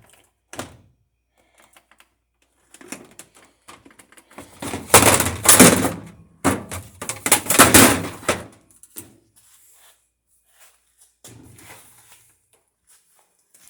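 Knocks and clattering of hard parts being handled and banged about, with two loud rattling spells in the middle and scattered single knocks before and after.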